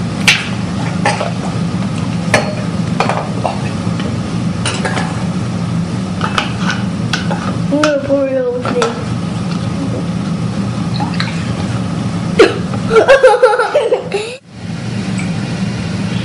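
Plastic bottles and drinking glasses knocking and clinking on a kitchen counter as a drink is poured, over a steady low hum. A child's short vocal sounds come about halfway through and again near the end.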